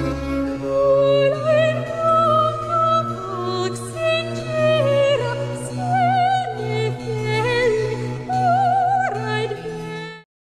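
Classical music: an operatic voice singing a slow melody with wide vibrato over sustained low orchestral notes. The music cuts off abruptly near the end.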